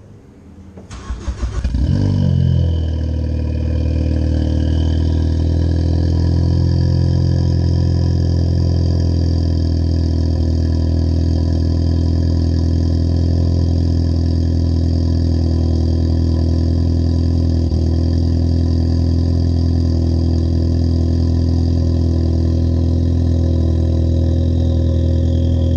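2013 Ford Focus ST's turbocharged 2.0-litre EcoBoost four-cylinder, breathing through an aftermarket MBRP exhaust, starting up: it cranks and catches in the first couple of seconds, then idles steadily at an even pitch.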